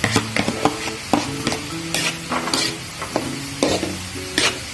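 Spatula stirring chopped onions, bell peppers and sliced green chilies sautéing in butter in a wok: a sizzle with frequent sharp clicks and scrapes of the spatula against the pan.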